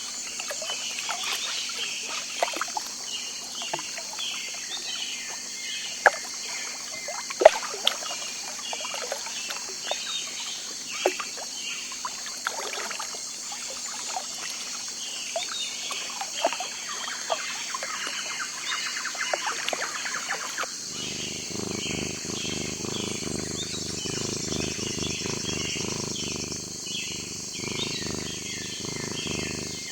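Birds chirping and calling over a steady high-pitched hiss. About two-thirds of the way through, a low rushing noise comes in and the calls become sparser.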